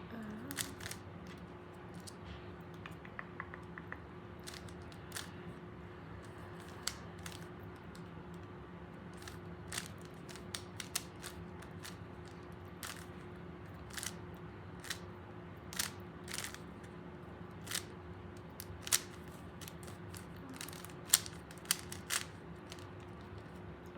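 Rubik's Cube being turned by hand: irregular plastic clicks and clacks as the layers are twisted, a few sharper ones near the end, over a steady low hum.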